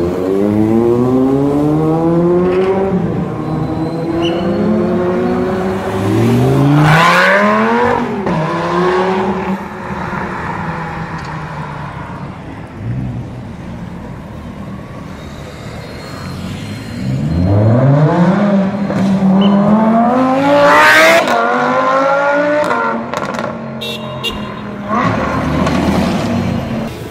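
Supercar engines revving hard and accelerating past, their notes climbing through the gears several times. The loudest passes come about 7 seconds in and again about 21 seconds in.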